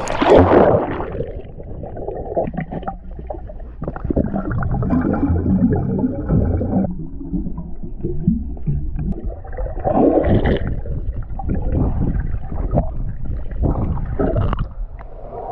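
Muffled underwater gurgling and rushing of water as a swimmer dives in a pool, starting with a loud splashing burst and followed by dull, uneven surges of water movement and bubbles.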